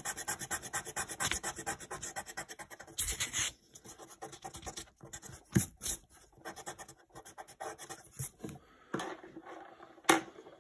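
Eraser rubbed rapidly back and forth on paper, many quick even strokes for about three and a half seconds, ending in a short louder rustle. After that, only scattered light knocks and paper rustles.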